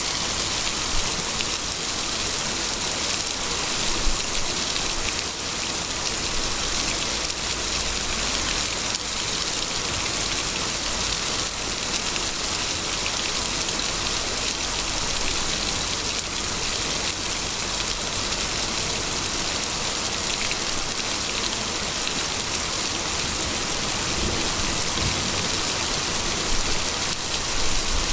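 Heavy downpour: a steady hiss of rain falling on the wet road and puddles, with a couple of louder single drop hits about a second and four seconds in.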